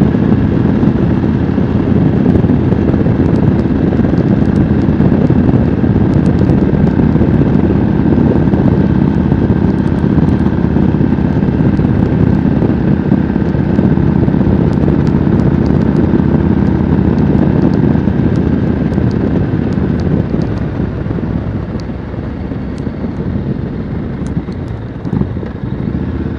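Yamaha Road Star V-twin cruiser under way at a steady road speed, the engine running under a rush of road wind. It gets quieter about twenty seconds in, on the approach to a bend.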